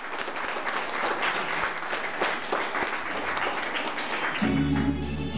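Audience applauding, a dense patter of hand claps; about four seconds in the clapping gives way to music starting up.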